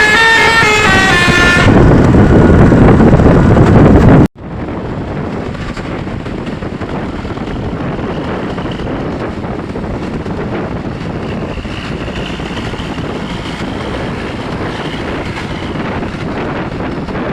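Telolet basuri multi-tone bus horn playing a melody of stepped notes, giving way after a couple of seconds to a loud low rumble. The sound cuts off abruptly about four seconds in, and a steady rushing noise runs on after it.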